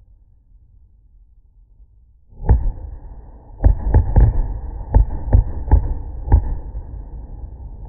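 Aerial fireworks firing from close by, heard slowed down: after a quiet start, a sudden deep boom about two and a half seconds in, then a run of about seven low thuds over a continuous deep rumble.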